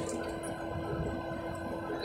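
Steady cabin drone inside a taxiing NAM Air Boeing 737: engine and air-conditioning noise with a constant low hum.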